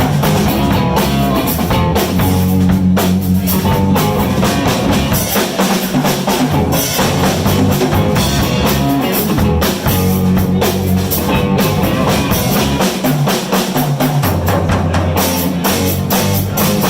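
Blues band playing live: drum kit keeping a steady beat with guitar and a bass line.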